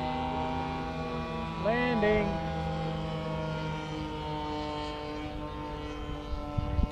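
Engines of radio-controlled model airplanes running steadily in flight, several pitches at once. About two seconds in, one pitch briefly rises and falls.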